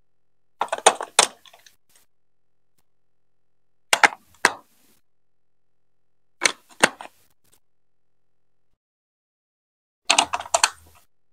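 Hard plastic Duplo building pieces being set and pressed into place on a baseplate and block towers: four short clusters of sharp clicks and knocks, with silence between them.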